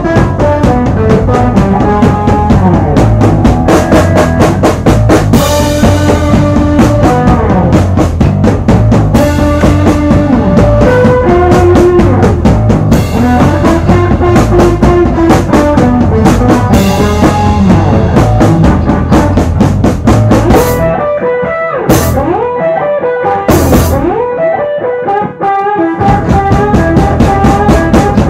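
Live band of electric guitar, bass guitar, keyboards and drums playing with a steady drum beat. About three-quarters of the way through, the bass and beat drop out for a few seconds, leaving sparse held notes and a few drum and cymbal hits, then the full band comes back in.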